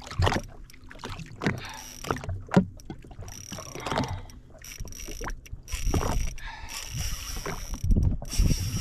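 Water slapping and splashing against the hull of a jet ski drifting at sea, in irregular knocks and thumps.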